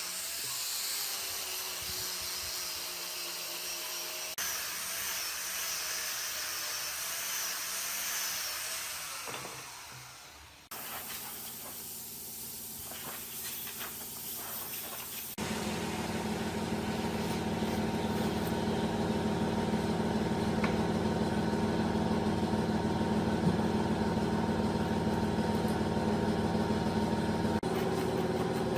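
Workshop power tools running across several cut-together clips. There is a hissing whine for about the first ten seconds, a quieter stretch with a few clicks, then a steady motor hum from about fifteen seconds in.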